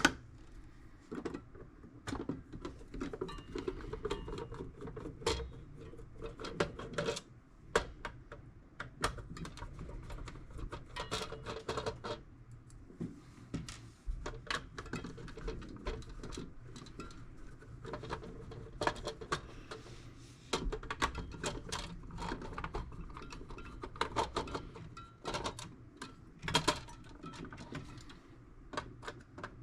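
Irregular small clicks, taps and light clatter of hand tools and parts being worked on a toolbox, going on without a steady rhythm.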